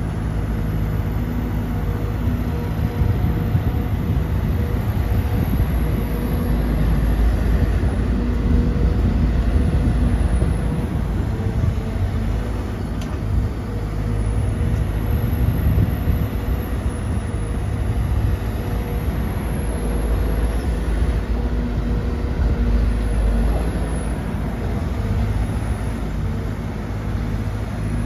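Sumitomo SH210-6 hydraulic excavator's diesel engine running under working load while loading a dump truck, its sound swelling and easing every few seconds through the dig-and-swing cycle.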